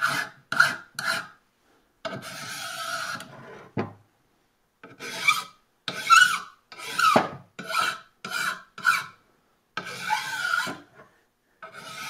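A file rasping in short back-and-forth strokes along the sharp corner of a hand plane's metal sole, easing the edge, about one stroke every half second. Two strokes, around two and ten seconds in, are longer and steadier, and there is a light knock near four seconds.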